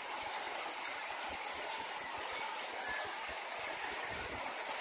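Heavy rain pouring steadily and splashing on wet paving.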